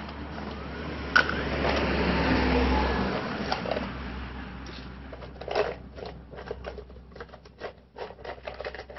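Close handling noise from inner-tube patch repair: a rough scraping sound for a couple of seconds, opening with a sharp click about a second in, then a run of small clicks and taps as the repair materials are handled.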